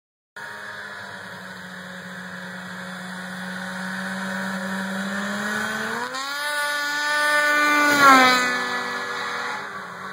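Snowmobile engine approaching steadily, revving up about six seconds in, then passing close about two seconds later, loudest as it goes by, its pitch dropping as it pulls away.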